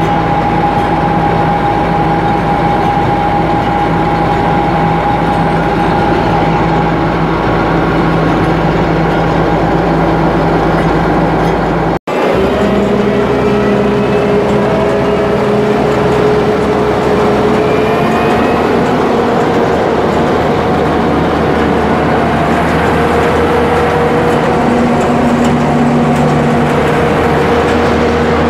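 The 2009 Gleaner A66 combine's AGCO Sisu six-cylinder diesel engine runs steadily with a constant hum of mechanical tones. The sound cuts out for an instant about twelve seconds in, then carries on with a slightly different set of pitches.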